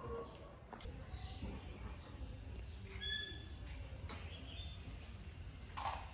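Short high animal chirps over a low steady background rumble: one clear chirp about three seconds in and a fainter rising one about a second later. A brief louder noise comes shortly before the end.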